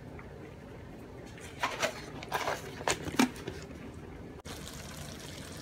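Rabbit pieces simmering in gravy in a pan, a steady low bubbling, with a handful of short taps and clicks in the middle.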